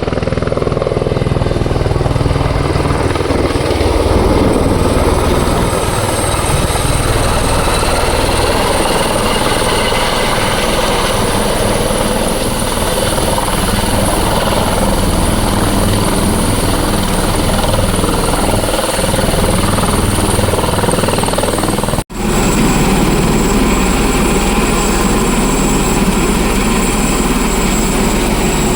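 Helicopter running steadily: a loud, even rotor and engine noise with a high, constant turbine whine on top. It breaks off for an instant about three-quarters of the way through.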